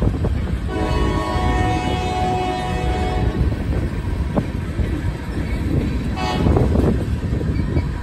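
Freight train locomotive horn sounding a long chord for about two and a half seconds, then a short blast near the end. Under it, the freight cars rumble and clatter steadily over the rails.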